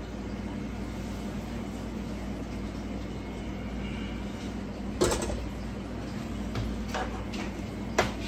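Metal cookware knocking over a steady low hum: one sharp clank about five seconds in, a few light clicks, and another sharp clank near the end, as pots and a spoon are handled and struck against the pan.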